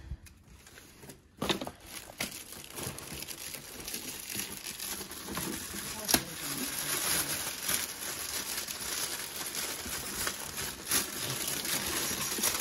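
Shiny metallic foil gift wrap being torn and crumpled by hand as a present is unwrapped: a dense crinkling full of sharp crackles that starts about a second and a half in.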